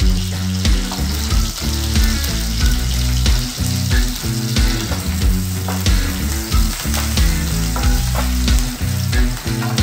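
Chopped garlic and spring onion sizzling in hot oil in a nonstick wok, stirred with a spatula near the end. Background music with a steady beat plays under it.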